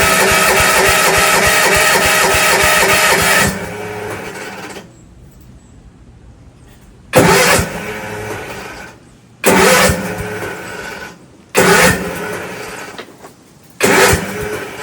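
A steady pitched sound that stops about three and a half seconds in, then a cold Gravely tractor engine cranked in four short tries, each lasting about a second. It does not catch.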